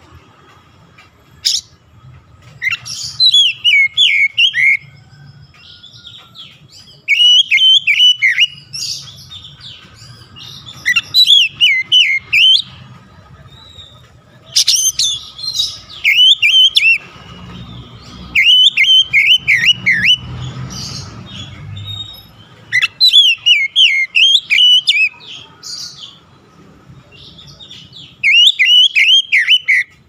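Oriental magpie-robin (kacer) singing: loud bursts of sharp, clear whistled notes, each a rapid run of rising and falling high notes lasting a second or two. The bursts come about seven times, with short pauses between them.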